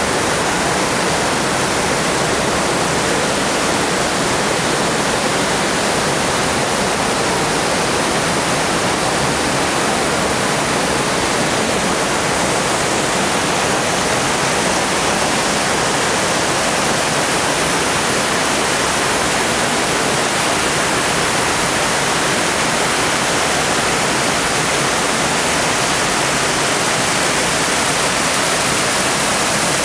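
Rushing water of a rocky mountain stream pouring over small cascades, a loud, steady rush without a break.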